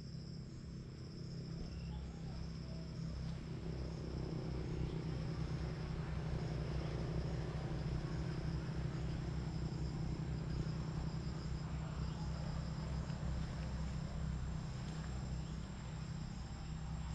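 Insects trilling steadily at a high pitch, over a louder low, steady hum.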